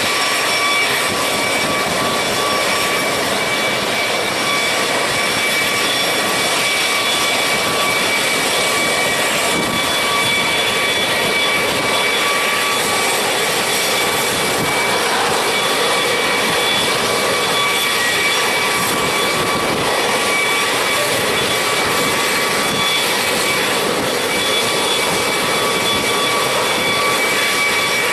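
Sikorsky CH-53E Super Stallion's turboshaft engines running steadily: a loud, even rush with a high, steady turbine whine in several tones over it.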